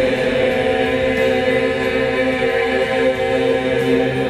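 A group of voices holding a long, steady chant-like tone together, several pitches layered.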